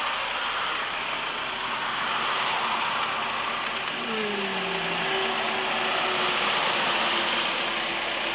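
Steady vehicle and road noise heard from inside a van's cab as traffic in a motorcade goes past, with a short falling tone about four seconds in.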